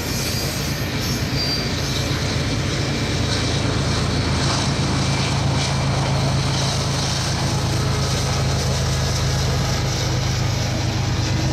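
Union Pacific double-stack intermodal freight train rolling past, the last container cars followed by a trailing diesel locomotive at the rear of the train. A steady low engine drone runs over the rumble of wheels on rail.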